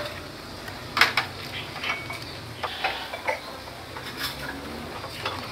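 A few scattered clinks and clatters of dishes and utensils being handled, with a low steady hum underneath.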